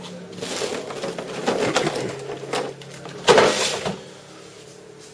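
Rummaging by hand through parts in a box under a workbench: a run of rustling, clattering handling noises, the loudest a little after three seconds, dying down near the end.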